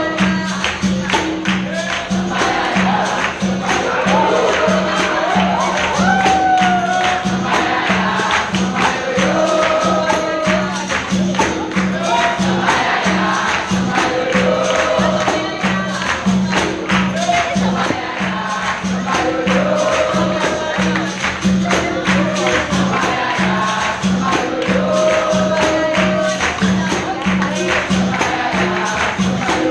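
Capoeira roda music: tambourine-like jingles and a steady low beat about twice a second under group singing in repeated phrases.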